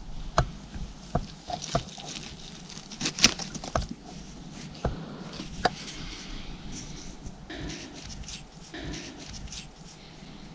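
Dry forest floor crackling and rustling as someone moves over it and picks a mushroom: scattered sharp snaps of twigs and dry grass over a steady rustle.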